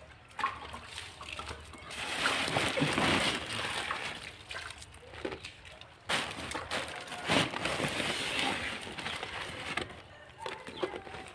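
Wet wall putty being mixed by hand in a plastic bucket: squelching and sloshing in two long stretches, the first starting about two seconds in and the second from about six to ten seconds.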